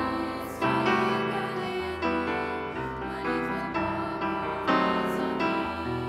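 Slow hymn music carried by piano chords, with a choir of young voices singing along.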